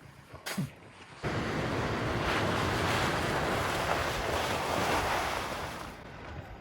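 Wind buffeting the microphone, a steady rushing noise that starts about a second in and eases off near the end.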